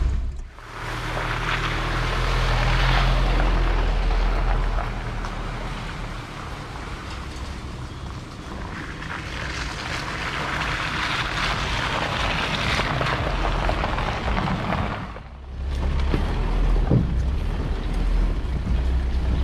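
Vehicle driving slowly over a bumpy dirt track: a steady low engine hum under a rush of road and wind noise, with wind buffeting the microphone. The sound drops away briefly about half a second in and again near 15 seconds.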